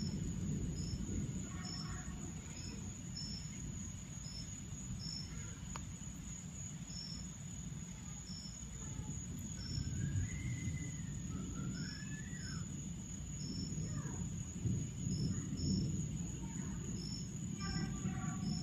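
Crickets or other insects chirping in short, irregular chirps over a steady high insect drone, with a constant low rumbling noise underneath and a few gliding calls from another animal in the middle.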